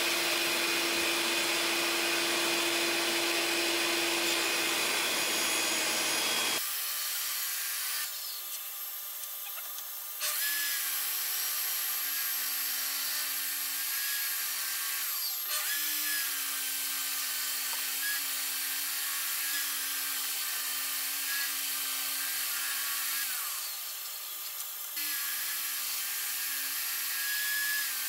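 Table saw running and ripping maple and walnut boards fed through with a push block, its motor's steady hum sagging slightly in pitch under each cut. For the first few seconds a shop vacuum's rushing noise covers it, then the sound changes abruptly to the bare saw hum.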